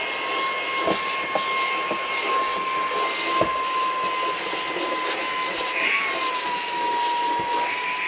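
Saker mini cordless handheld vacuum with a brushless motor running at speed over a wooden desktop: a steady rush of air with a high motor whine, its pitch dropping slightly about six seconds in.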